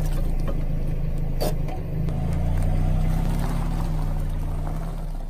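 Car engine running low and steady as the car rolls slowly over objects, with scattered small crackles of things being crushed under the tyre and one sharp snap about a second and a half in.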